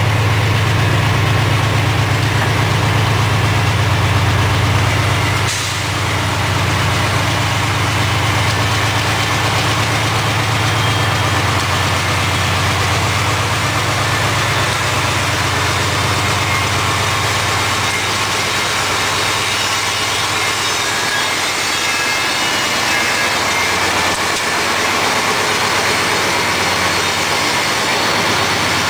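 CSX diesel-electric freight locomotives approaching and passing close by, their engines running with a heavy, steady low drone. After about eighteen seconds the drone weakens and a broad rumble of wheels on rail takes over as the rest of the locomotive consist goes by.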